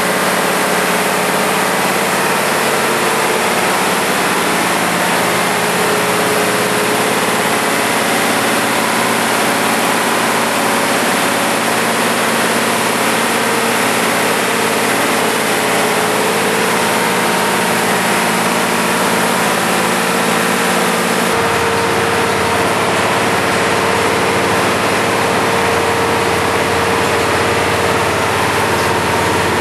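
Ford 390 FE V8 stroked to 445 cubic inches, carbureted, idling steadily on an engine dyno with no load applied. The sound turns fuller and deeper about two-thirds of the way through.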